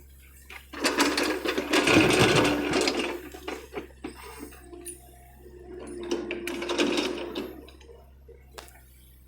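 A John Deere excavator working: a steady machine hum with two louder surges of whirring, grinding noise, the first about a second in and a weaker one a few seconds later.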